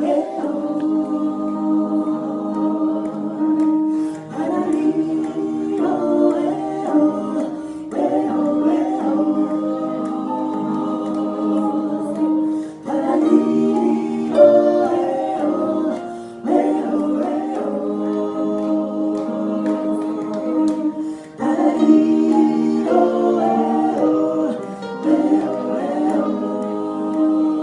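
A choir singing in close harmony, holding sustained chords in phrases of a few seconds each with short breaks between.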